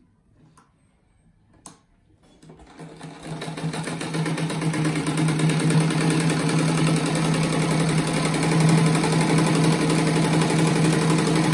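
Industrial sewing machine starting up about two and a half seconds in, after a couple of faint clicks, then running steadily at speed with a fast, even rhythm, stitching through layers of quilted fabric.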